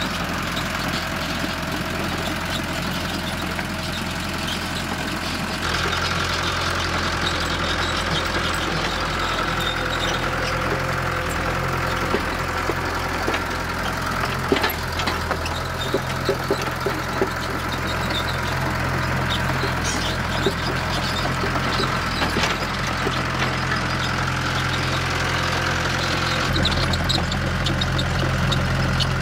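Kobelco Acera crawler excavator's diesel engine running steadily as it levels dirt, the engine note rising about six seconds in and again near the end. Scattered clanks in the middle.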